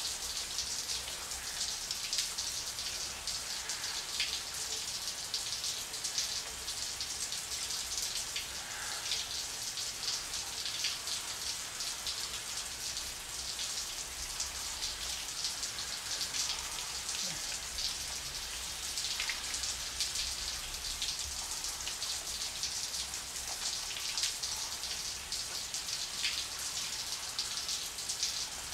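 Running shower water, a steady hiss and patter of spray falling on skin and the floor.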